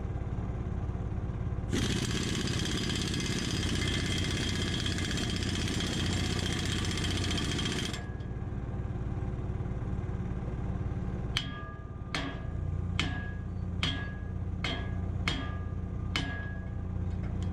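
An engine runs steadily throughout. From about two to eight seconds in, a louder harsh noise with a high whine covers it. Near the end comes a run of about nine hammer blows on steel, roughly two a second and each one ringing, as a chisel plow shank is pounded.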